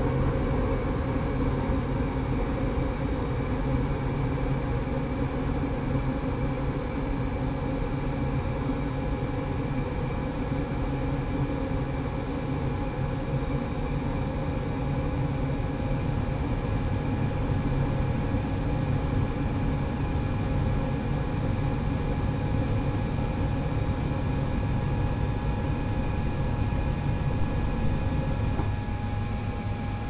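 Furnace running: a steady low rumble with a few faint steady tones humming above it. Shortly before the end the sound shifts and its high hiss drops away.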